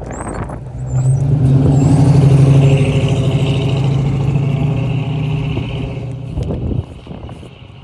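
A motor vehicle's engine running with a steady, unchanging pitch. It swells up about a second in and cuts off suddenly near the end.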